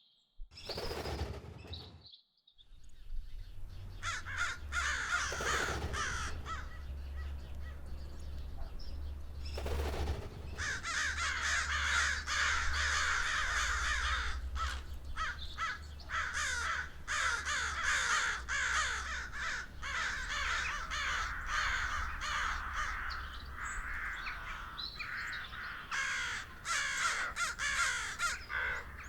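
A dense chorus of many crows cawing, building a few seconds in and continuing throughout, over a low steady rumble.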